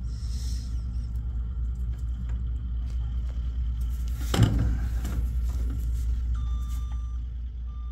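Black ABS pipe being pushed down into a freshly cemented fitting, with one sharp knock about four and a half seconds in as it seats. A steady low rumble runs underneath, and a high beep sounds in short pulses near the end.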